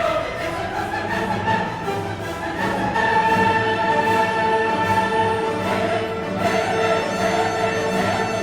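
Classical orchestral music with a choir singing, playing steadily as background music.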